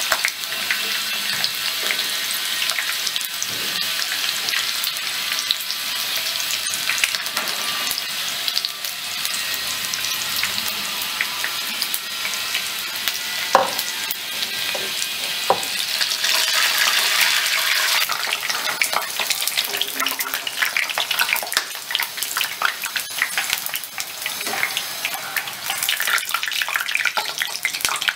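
Gram-flour-battered pumpkin blossoms deep-frying in hot oil over a medium flame: a steady sizzle with crackling and popping, which gets busier in the second half.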